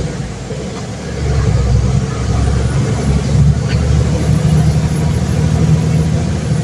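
Truck's diesel engine pulling in a low, heavy gear, heard from inside the cab. It dips briefly at the start, then builds again from about a second in.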